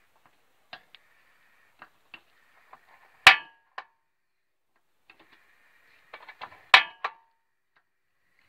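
Gas hob burner being lit: small ticks of the control knob and a faint hiss of gas, with two loud, sharp igniter clicks that ring metallically, about three and a half seconds apart.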